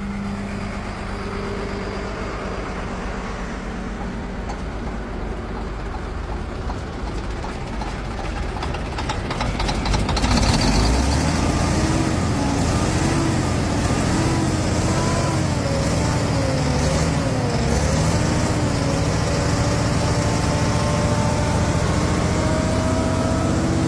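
Truck engine running. About ten seconds in it gets louder and settles into a steady run, with a pitch that wavers up and down.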